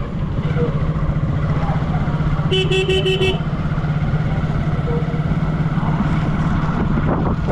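Motorcycle engine running steadily while riding. About two and a half seconds in, a horn sounds a quick run of short beeps.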